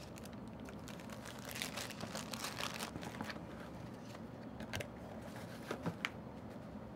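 Paper wrapping crinkling as a piston ring is packed back into its sleeve and cardboard box, with a few light clicks and taps as the small boxes are handled and set down.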